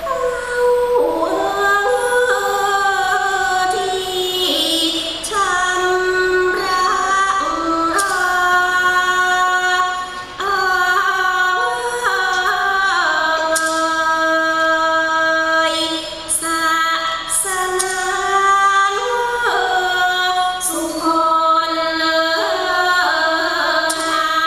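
Thai classical song sung by a female vocalist in long, drawn-out, gliding phrases, accompanied by a piphat ensemble.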